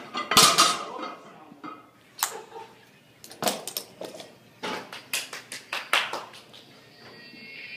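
Loaded iron-plate barbell set down on a rubber gym floor about half a second in, with a heavy clank of the plates. It is followed by a run of sharp clicks and clacks as a leather lifting belt's metal lever buckle is opened and the belt is dropped to the floor.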